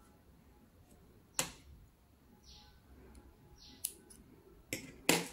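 Faint handling sounds of a steel yarn needle being worked through crochet stitches between the fingers, with four sharp clicks, two of them close together near the end.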